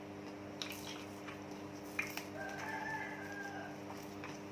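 Rooster crowing faintly in the background, one drawn-out call starting about two seconds in, over a steady low hum and a few small clicks.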